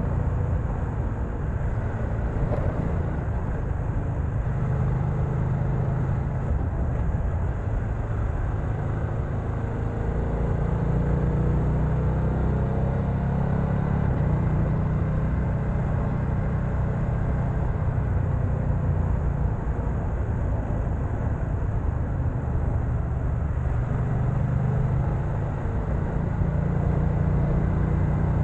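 BMW F900XR motorcycle's 895 cc parallel-twin engine running under way, its note rising and falling a little as the speed changes, over a steady rushing noise.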